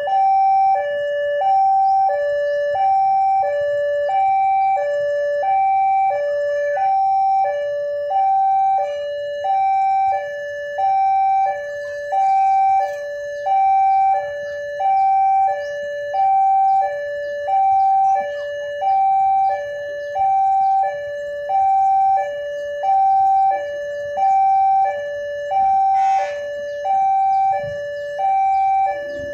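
Railroad level-crossing warning alarm sounding: an electronic two-tone signal alternating evenly between a higher and a lower tone, each held for a bit over half a second, repeating steadily to warn that a train is approaching. A faint low engine rumble sits underneath.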